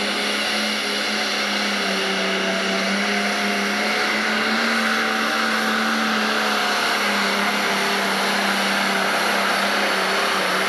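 Turbocharged diesel Pro Stock pulling tractor running at full throttle under heavy load as it drags a weight-transfer sled. The engine note is loud and holds steady at one pitch.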